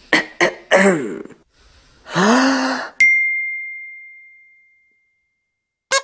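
Comic gurgling and groaning sound effects, several short sliding-pitch noises and a longer rumbling one, standing for gas being squeezed through the intestines, then a single bright ding about three seconds in that rings and fades out over about two seconds.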